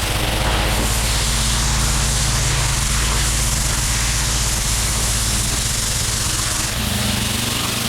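Gas-engine pressure washer running steadily under load, with the hiss of a high-pressure water spray on pavers. Near the end the spray hiss eases and the engine note shifts.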